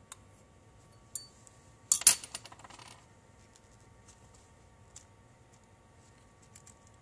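A small metal object clattering onto a workbench: a quick run of metallic clinks lasting about a second, the loudest sound, preceded by a sharp click, with a few faint clicks of small parts being handled.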